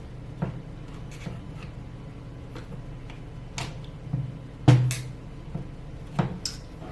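Scattered clicks and light knocks of metal and plastic parts being handled and fitted onto an AR-15, with one sharper knock a little past halfway.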